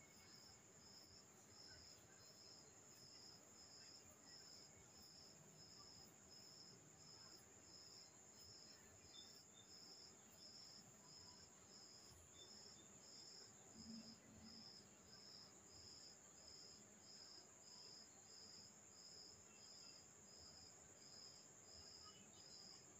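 Near silence, with a cricket chirping faintly and evenly about twice a second over a steady high hiss.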